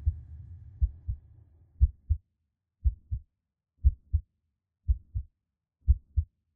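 Heartbeat sound effect: paired low thumps, lub-dub, steady at about one beat a second. A low rumble fades away over the first second or two.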